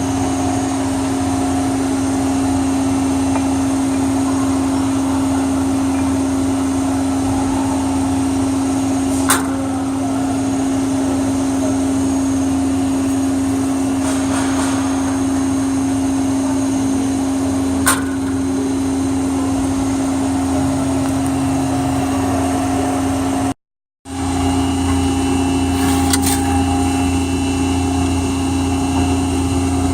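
Amada CNC turret punch press running with a steady machine hum and a strong constant tone, broken by two single sharp clicks about nine and eighteen seconds in. The sound drops out for a moment a few seconds before the end, then the same hum resumes.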